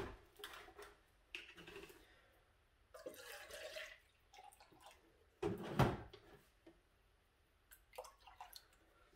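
Faint sound of milk being poured into an emptied soup can, with scattered light knocks and one louder clunk about two-thirds of the way through.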